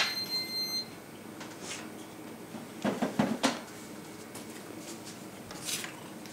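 Food dehydrator's digital control panel giving a single high electronic beep, just under a second long, as a button is pressed. A few knocks and rattles follow about three seconds in.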